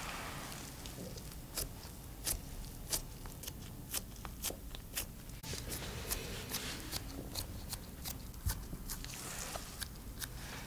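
Gloved fingers pressing and shaping soft mashed potato in a glass baking dish: an irregular run of sharp, sticky clicks and squelches, about two a second, as the mash is pushed into wells and the fingers pull away.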